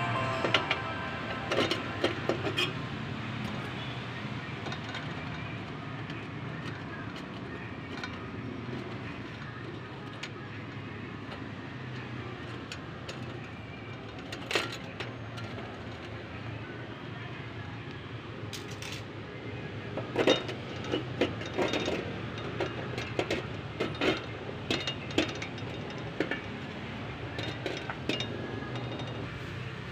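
Clinks and small knocks of metal parts on a metal ceiling-lamp base as it is handled, with its spring clips and centre rod being fitted, over a steady low background hum. The knocks come in a cluster about two seconds in, once around the middle, and then frequently through the last third.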